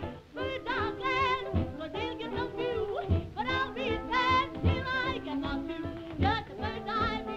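A woman singing with a wide, wavering vibrato over a 1920s jazz band with saxophones and a bass drum keeping a low beat.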